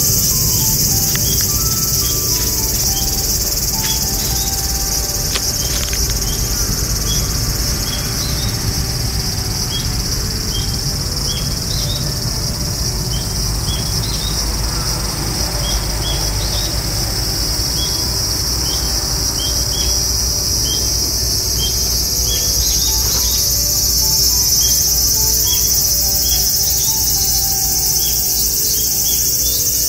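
Dense insect chorus, a steady high-pitched shrill throughout, with short chirps repeating just below it.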